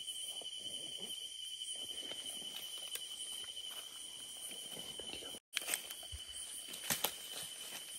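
Footsteps and rustling through dry leaf litter and bamboo undergrowth, over a steady high insect trill. The sound cuts out for an instant partway through, followed by a few sharp clicks.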